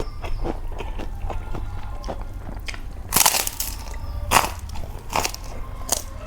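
A person eating close to the microphone: chewing and biting with small wet clicks, and several louder short bursts from about three seconds in.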